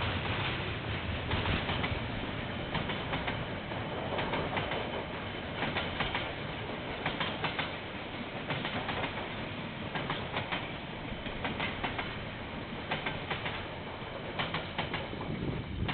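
Freight train container wagons rolling past, a steady rumble broken by clusters of clacks as the wheels cross the rail joints.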